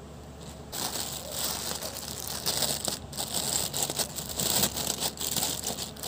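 Plastic packaging crinkling as hands handle a clear plastic bag and a black plastic mailer bag, starting under a second in and going on in irregular crackles.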